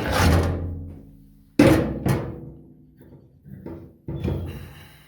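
Hard metal clanks with a ringing decay: a loud one at the start, another about a second and a half in, quickly followed by a third, then a couple of lighter knocks near the end, as the knockout punch's die and shaft are handled after popping the latch hole.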